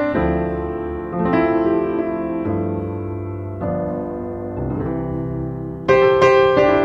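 Background music: slow piano chords, a new chord struck about every second and left to ring, with a louder, brighter chord near the end.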